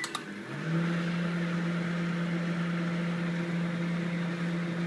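LG Intellicook microwave convection oven starting a grill cycle: a click, then a hum that rises and settles within the first second into a steady pitch, with the even whoosh of the oven's fan.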